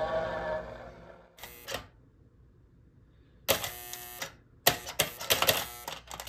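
Music fading out, then three short bursts of mechanical clicking and clatter with pauses between them.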